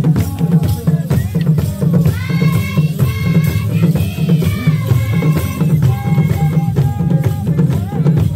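Rwandan traditional ingoma barrel drums beating a fast, steady rhythm, with the ankle bells of stamping intore dancers jingling over it. Voices chant or sing in stretches of about a second at a time over the drumming.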